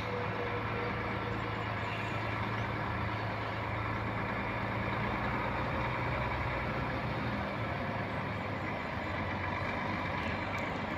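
Heavy truck's diesel engine running steadily, with an even hiss over it.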